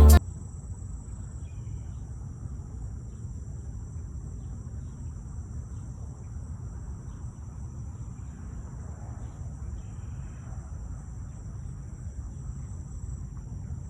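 Steady, unbroken high-pitched chirring of crickets in two even tones, over a low steady rumble.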